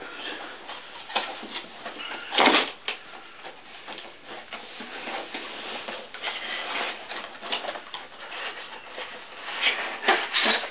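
A cardboard laptop box being handled and opened: cardboard rustling and scraping, with a louder knock about two and a half seconds in and two more near the end.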